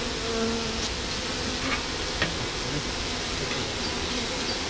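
A crowd of honeybees on the hive's landing board fanning their wings, a steady buzzing hum, with a single tick about two seconds in. The fanning is scenting: the bees spread attractant scent from their Nasanov glands.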